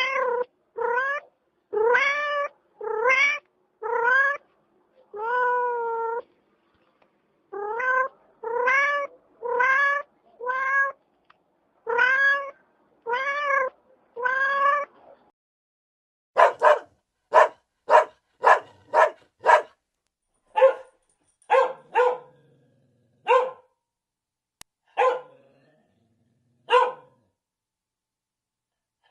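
A domestic cat meowing repeatedly, about a dozen drawn-out meows, then from about halfway a dog barking in short, sharp barks, several in quick runs.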